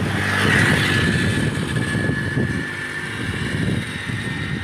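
Wind buffeting the microphone and road noise as a bicycle rides along a paved road, with a steady thin high-pitched whine throughout and a louder swell in the first second.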